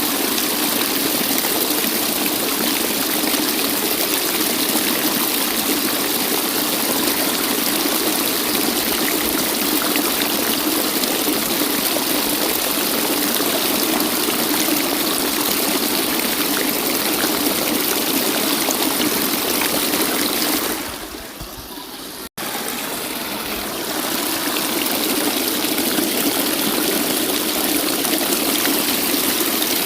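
Waterfall rushing in a steady, even roar of falling water. About two-thirds of the way through it dips, drops out for an instant, and comes back quieter before building up again.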